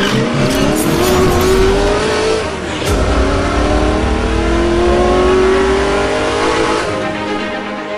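Racing motorcycle engine accelerating hard, its pitch climbing, dropping once at an upshift about two and a half seconds in, then climbing again until near the end.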